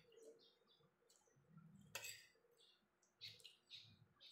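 Faint clinks and scrapes of a fork and spoon on a ceramic plate, with one sharper clink about two seconds in and a few short squeaky scrapes near the end.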